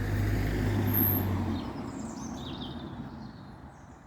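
A car passing by: engine hum and tyre noise swell to a peak about a second in, then fade away. Birds chirp briefly in the second half.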